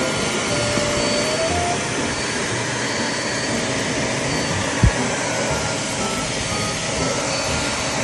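Deerma DX115C handheld vacuum cleaner running steadily with its crevice nozzle, sucking along a floor edge. There is a single low thump about five seconds in.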